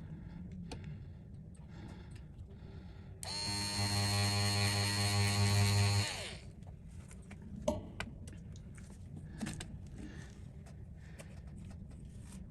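A small electric motor buzzing steadily for about three seconds, starting and stopping abruptly, followed by a few sharp clicks or taps.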